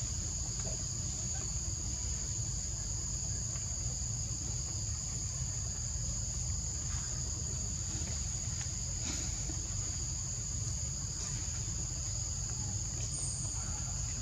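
Steady chorus of forest insects, a continuous high shrill at two pitches, over a low steady rumble.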